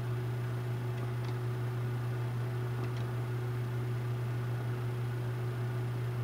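Steady low electrical hum over a constant hiss, with a couple of faint clicks about one and three seconds in.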